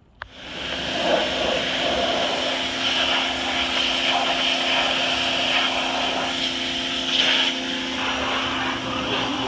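Electric blower switched on about a quarter second in and running steadily with a loud rushing hiss and a motor hum, blowing lint and dust out of a dryer cabinet.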